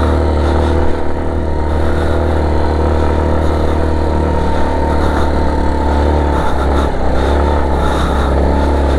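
Motorcycle engine running at fairly steady revs under load while riding through loose sand, with a brief dip in revs about seven seconds in.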